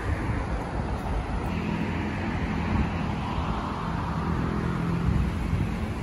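Road traffic, with one vehicle's engine passing, heard from about a second and a half in until near the end.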